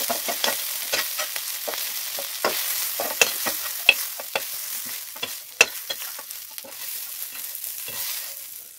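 Prawns sizzling in hot oil in a pan as a utensil stirs and scoops them out, with frequent sharp clicks and scrapes against the pan; the sizzle slowly dies down toward the end.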